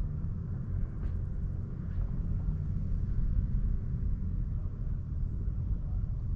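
A distant rally-school car running on the dirt track, heard as a low, uneven rumble.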